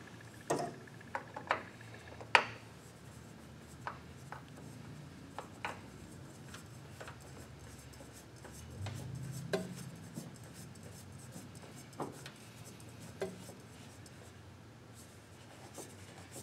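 Scattered light clicks and knocks as a Kohler oil filter is handled and spun by hand onto its threaded mount, with a short rubbing scrape about nine seconds in.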